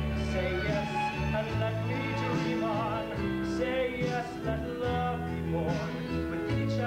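A song from a stage musical: a man singing a slow melody with vibrato over instrumental accompaniment of long held notes.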